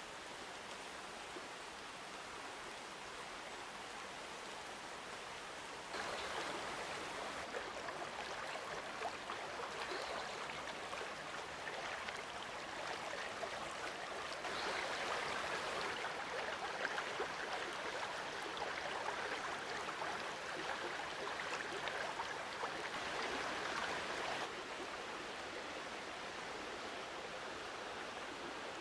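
Steady rush of a mountain stream flowing. It gets suddenly louder about six seconds in and drops back a few seconds before the end.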